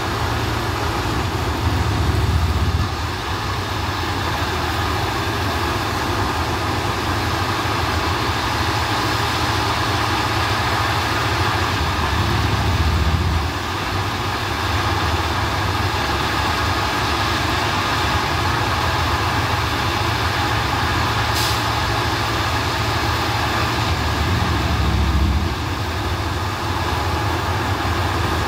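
Plasser & Theurer 08-32 U ballast tamping machine at work: its diesel engine runs steadily, and a heavier low rumble swells for a second or so about every eleven seconds, three times, as the machine goes through its tamping cycle. A single sharp click comes about three-quarters of the way through.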